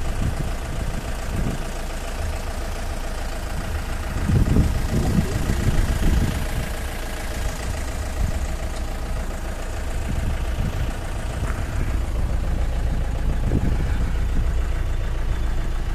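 Mahindra jeep's engine running steadily as it drives a rough dirt track, heard from inside the cab along with road noise. It gets louder for a couple of seconds about four seconds in.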